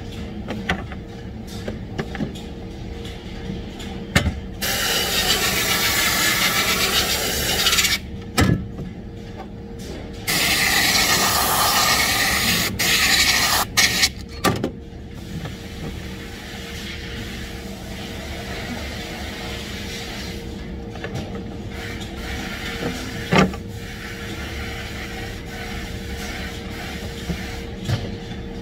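Two long hisses of compressed air, three to four seconds each, over a steady factory hum, with a few sharp knocks from rubber hoses and fittings being handled.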